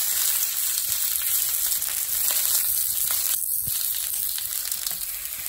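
Steady frying sizzle from food on hot stovetop pans: wet whole tomatoes, garlic and onion charring on a dry griddle, beside chicken cooking skin-down in its own fat. A few light clicks of metal tongs come through near the middle.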